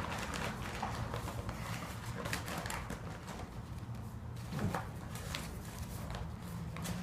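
Scattered clicks, knocks and rustling as hands work the bag compartment of a Hoover Convertible Elite upright vacuum to take the old bag out, with a short falling squeak about four and a half seconds in.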